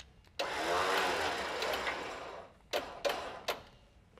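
Electric winch motor running for about two seconds. It starts suddenly, its whine rising and then falling as it winds down, and a few light metallic clicks follow.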